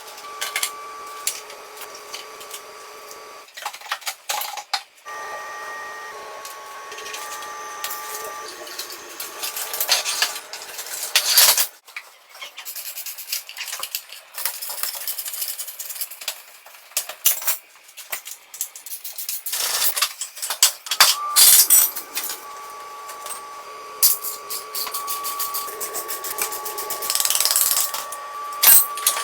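Metal tools and parts clinking, scraping and clattering during hands-on restoration work, with a steady high whine in several stretches.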